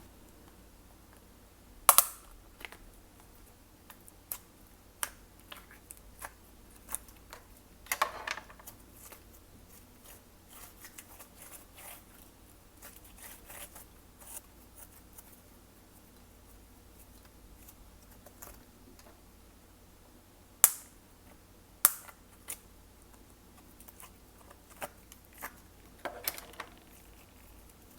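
Glossy slime being squished and mixed by hand, giving scattered sharp clicks and pops. A few louder snaps come about two seconds in, about eight seconds in, and twice just past twenty seconds.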